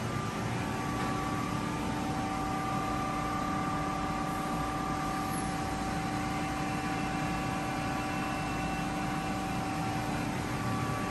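Steady machine hum and hiss of a powered-up Haas ST-25 CNC lathe idling, a few steady tones held over an even noise.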